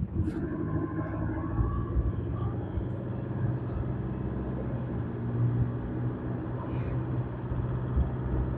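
Engine and road noise of a moving road vehicle: a steady low hum with an even engine tone.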